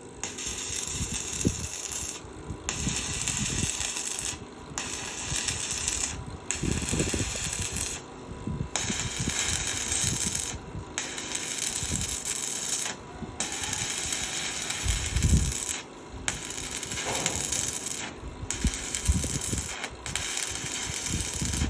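Electric arc welding: the crackling sizzle of the arc comes in runs of about two seconds, each broken by a short pause of about half a second as the arc is stopped and struck again, with some low knocks in between.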